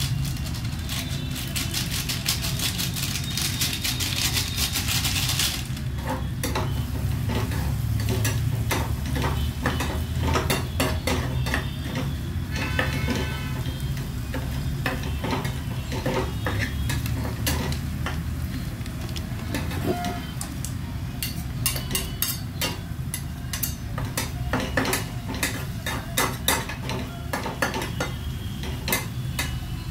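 Onion-tomato masala sizzling in a steel pan while a metal spoon stirs it, clinking and scraping against the pan. The sizzle is strongest for the first five or six seconds; after that, quick spoon clicks against the pan dominate.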